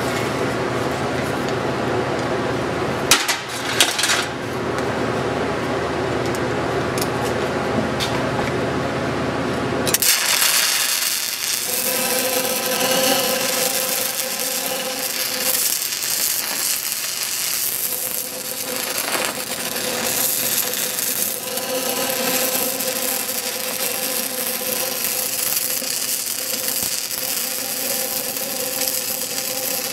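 Stick welding arc on a steel pipe joint: a few sharp strikes over a steady hum in the first several seconds, then about ten seconds in the arc takes hold and keeps up an even crackling sizzle.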